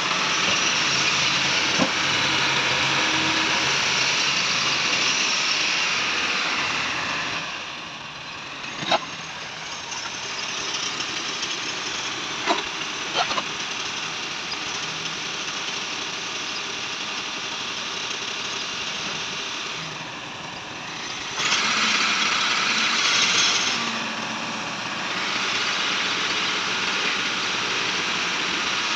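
Massey Ferguson tractor engine running, getting louder and quieter in turn, with a few sharp knocks about a third of the way in.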